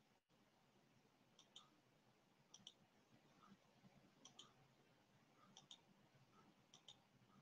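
Near silence with faint pairs of short clicks repeating about every second and a half.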